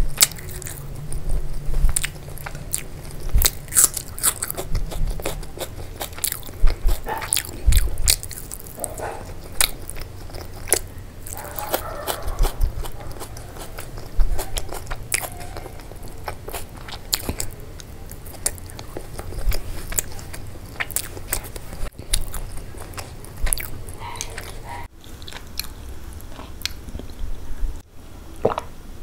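Close-miked eating sounds: biting and chewing crunchy fried food, with many sharp, irregular crunches.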